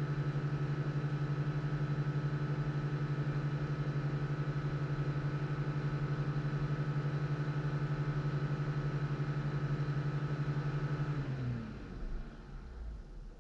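Jeep engine idling steadily with an even pulse, then switched off about 11 seconds in, its note sliding down as it winds to a stop.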